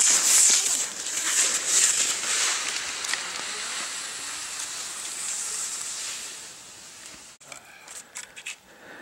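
Cross-country skis hissing as they glide over snow, loudest at the start and fading over several seconds. After a sudden cut, fainter scattered clicks and scrapes of skis and poles on snow.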